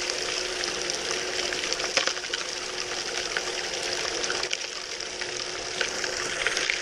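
Water rushing steadily through a homemade two-tier highbanker sluice fed by a water pump, with a steady hum and scattered small ticks as material is spooned in.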